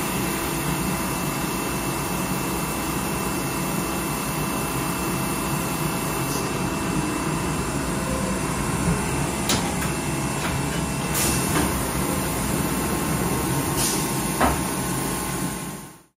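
2006 Mazak VCN-510CII CNC vertical machining centre running a cut under flood coolant: a steady machine hum with coolant spray. A few sharp clicks come in the second half, and the sound fades out at the end.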